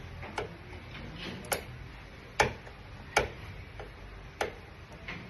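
Sharp, irregular taps and clicks, about eight over five seconds, the loudest near the middle, over a faint steady background hum.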